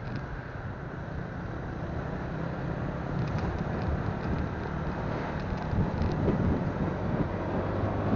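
Motorcycle engine running steadily under way, with wind rushing over a phone microphone.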